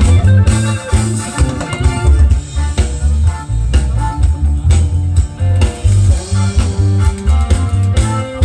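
Music with drum kit, bass guitar and guitar: a heavy, pulsing bass line under a steady beat.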